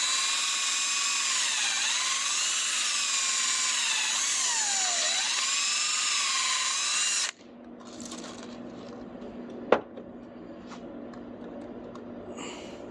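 Power drill spinning a cleaning brush in the slide-pin bores of a brake caliper bracket. Its whine dips in pitch twice as the brush loads up, then stops suddenly about seven seconds in. A single sharp click follows a couple of seconds later.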